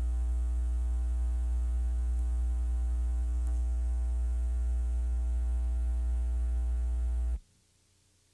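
Steady electrical mains hum with buzzy overtones in the audio track. It cuts off abruptly about seven seconds in and leaves near silence.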